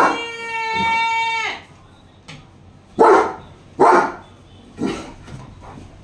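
German Shepherd barking: one bark, then a long, even-pitched whining cry held for over a second, then three sharp barks about a second apart, the last one weaker.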